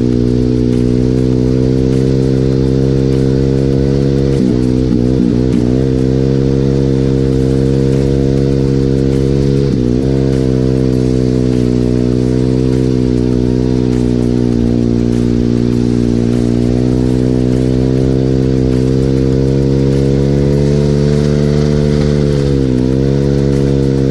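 Regulmoto Seven Medalist 150E pit bike's single-cylinder four-stroke engine running at steady revs under way on snow. The revs dip and waver about four seconds in, dip briefly again about ten seconds in and near the end, then recover.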